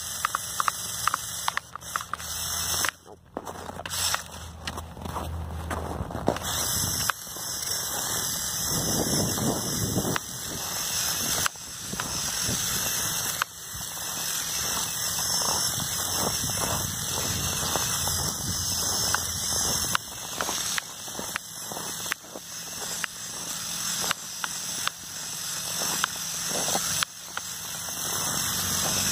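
Lego Technic RC snowmobile's two buggy motors driving its tracks in repeated bursts: a high whine that rises over a second or two each time, with many clicks and crackles from the tracks and gears.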